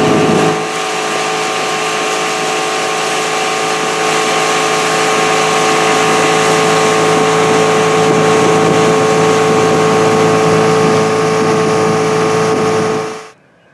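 Motorboat engine running steadily at speed, with a constant engine tone over the rush of water off the hull; it cuts off abruptly near the end.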